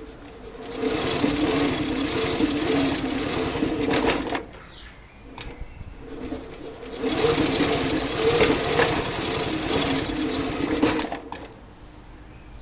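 A small engine, taken here for the Honda PC50 moped's 49cc engine, running in two spells of about four seconds each with a quiet gap between, as if it starts and then stops.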